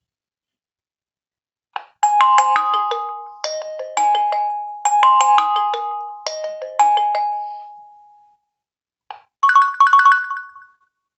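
Nokia 1.3 smartphone playing a ringtone preview: a short two-part melody played twice, then dying away. After a click, a different ringtone starts and is cut off about a second later.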